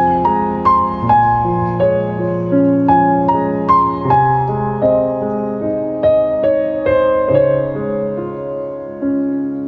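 Background piano music: a slow melody of struck notes, each fading away, over held lower notes.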